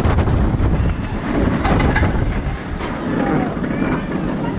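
Vekoma motorbike roller coaster train rumbling along its steel track, with wind rushing over the microphone, slowly getting quieter. A few faint rider voices come through near the middle and end.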